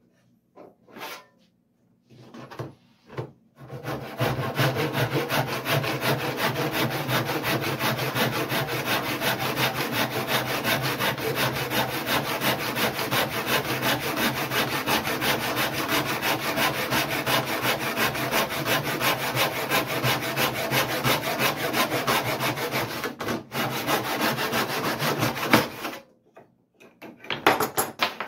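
Handsaw cutting cherry stock in a wooden mitre box: steady back-and-forth rasping strokes for about twenty seconds, with a brief pause near the end of the cut. A few short knocks come before the sawing starts and again after it stops.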